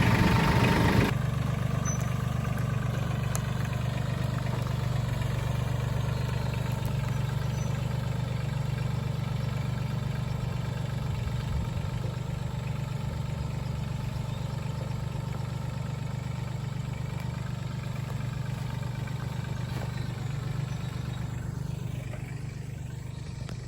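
Four-wheeler (ATV) engine running at a steady speed, slowly getting quieter.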